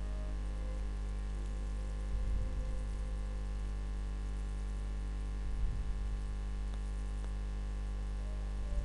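A steady low electrical hum from the recording setup, with a few soft low bumps about two, six and nine seconds in.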